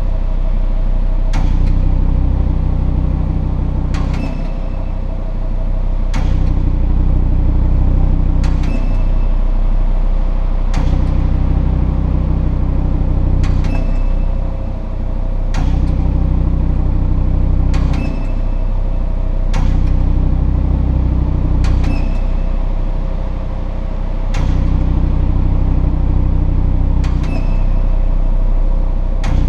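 2017 Audi RS3 sedan's five-cylinder engine running steadily, with a short, high squeak repeating about every two seconds: the flaps of its RS sport exhaust squeaking.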